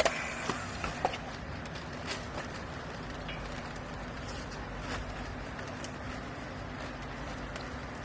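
Vertical hydraulic clothing baling press running with a steady machine hum, with a sharp knock at the start and a few smaller knocks and clatters in the first two seconds or so.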